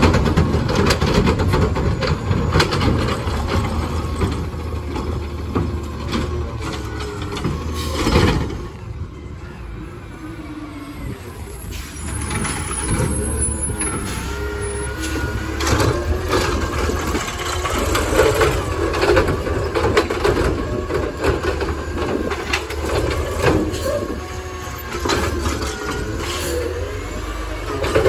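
Natural-gas-powered Autocar garbage truck with a McNeilus ZR automated side-loader running while it works the curb: the hydraulic arm lifts and dumps trash carts, and air brakes hiss as it creeps between stops. A sharp loud bang comes about eight seconds in.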